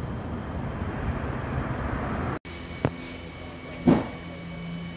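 Outdoor street ambience: a steady, noisy rumble of traffic that cuts off abruptly about two and a half seconds in. Then a quieter room tone follows, with a steady hum and two short knocks.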